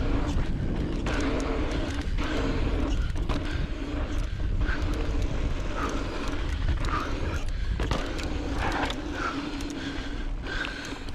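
The mid-drive motor of a Commencal Meta Power 29 electric mountain bike whines in pulses as the rider pedals. It sits over the rush of wind on a chest-mounted action camera and the noise of tyres on a dry dirt trail, with scattered clicks and rattles from the bike over bumps.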